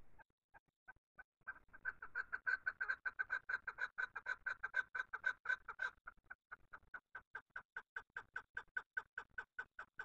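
Chukar partridge calling: a rapid run of short clucking notes. It starts sparse, thickens to about five notes a second around a second and a half in, and goes on a little softer and slower in the second half.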